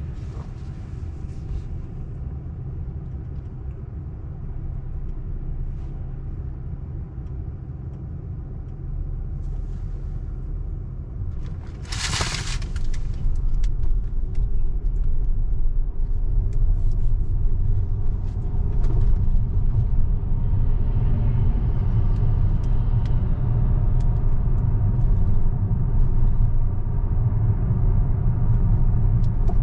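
Road and tyre rumble inside an electric Tesla's cabin, growing louder about halfway through as the car picks up speed. About a third of the way in, a brief loud hiss sweeps down in pitch.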